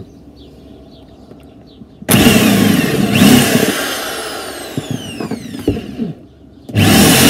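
Handheld electric drill starting about two seconds in and running under load, its pitch falling as it slows. It stops briefly and starts again near the end.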